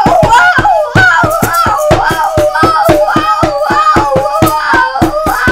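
Children singing a fast run of repeated nonsense syllables to a bouncing tune, about six sharp beats a second: a made-up animal call in the song.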